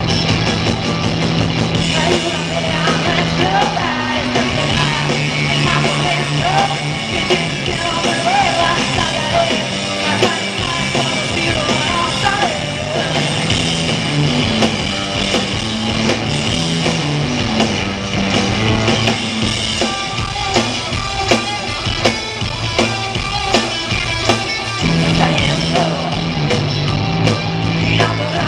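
Live rock band playing a song at full volume, with drums, a stepping bass line and a voice singing over it.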